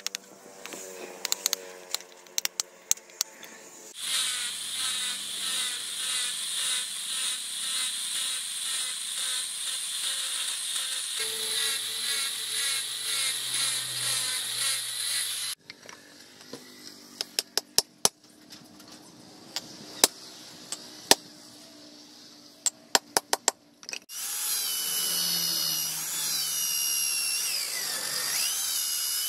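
Hammer taps on a chisel carving a wooden knife handle. About 4 seconds in, an angle grinder with a sanding disc starts and runs with a pulsing high whine for some eleven seconds, shaping the handle. After a run of sharp taps, a motor spins the handle on a shaft like a lathe, its high whine dipping in pitch near the end as the handle is worked.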